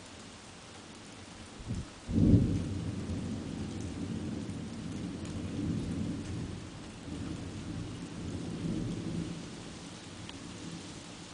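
Thunder: a sharp clap about two seconds in, followed by a low rolling rumble that lasts several seconds and slowly fades, over a steady background hiss.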